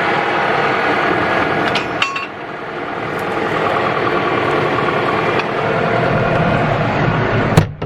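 Skid-steer loader engine running steadily, with a few metallic clinks about two seconds in and a sharp clank near the end.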